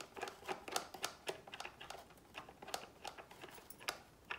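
Light, irregular clicks and taps of small plastic parts being handled on a GoPro Max 360 camera.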